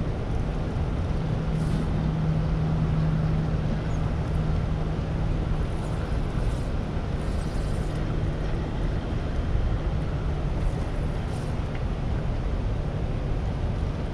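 Steady rushing of water churning out below a dam. A low steady hum runs through the first half and fades.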